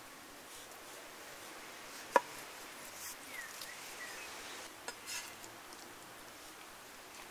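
A large kitchen knife slicing raw sheep organ meat on a wooden cutting board, with one sharp knock of the blade on the board about two seconds in and softer taps and a brief scrape around five seconds in. Birds chirp faintly between them over a steady outdoor hiss.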